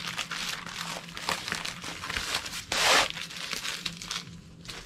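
Plastic packaging crinkling and rustling as a rolled diamond painting canvas is handled and pulled from its bag, with a louder, longer rustle about three seconds in.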